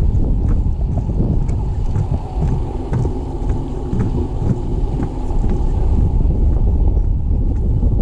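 Wind buffeting the microphone with a loud, low rumble, and faint footsteps on a gravel path about twice a second.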